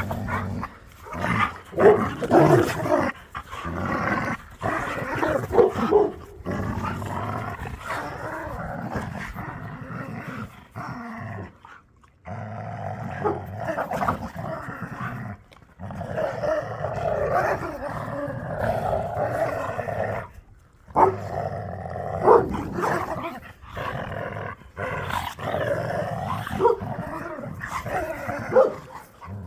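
Dogs growling on and off for long stretches, with sharp barks or snaps among the growls.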